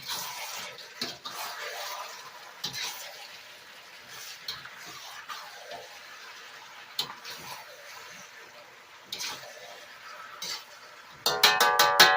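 Metal spatula stirring and scraping food in a wok, with scattered clanks. Near the end comes a loud run of rapid scraping and metallic ringing as the food is tossed.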